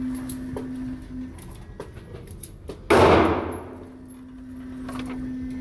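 A single loud, sharp bang about three seconds in, with a long echoing tail, in the hard reverberant room of an indoor shooting range. A steady low hum runs before it and again afterwards.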